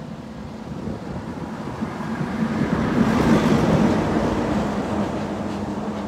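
Fast-flowing muddy floodwater of the Draa river rushing past, a continuous noise that swells to its loudest about halfway through, over a steady low hum.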